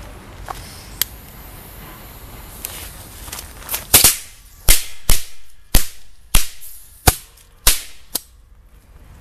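Feistel Knallfrosch B, an old German zigzag-folded firecracker, going off in a rapid string of about eight sharp bangs at uneven spacing, starting about four seconds in. The first bangs are the loudest and the last is smaller.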